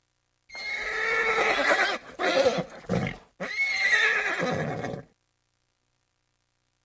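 A horse whinnying: a long, wavering neigh, two short lower sounds, then a second neigh that cuts off about five seconds in.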